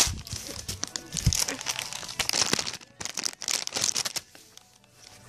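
Crinkling and rustling of a soft plastic baby-wipes pack being handled, dense irregular crackles that stop about four and a half seconds in.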